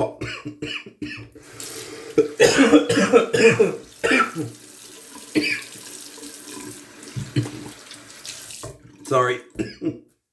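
A tap running into a sink for about seven seconds, starting a second or so in and stopping near the end. Over it a man coughs repeatedly in hard fits.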